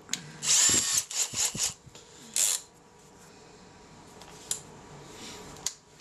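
Hand-held power drill fitted with a 10 mm Forstner bit, run briefly: its motor whirs up and down in pitch for about a second and a half, then gives a second short burst.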